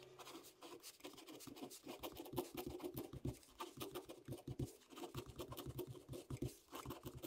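Pen writing on squared paper: a quick, irregular run of short scratching strokes of the pen tip on the sheet.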